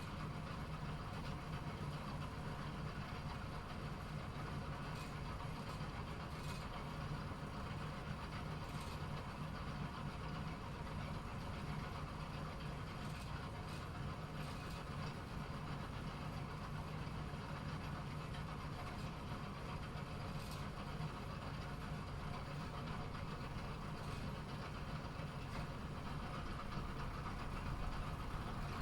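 Bowling alley pinsetter machinery running with a steady mechanical hum, with occasional faint clicks.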